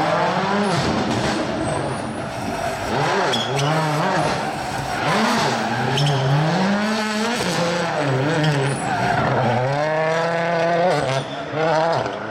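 Rally car engine revving hard through the gears, its pitch climbing and dropping about six times as the car accelerates, lifts and brakes, with a few sharp cracks in between.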